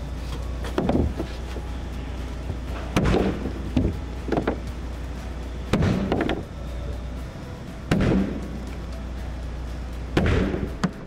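Background music, with a series of heavy thuds at uneven intervals every second or two.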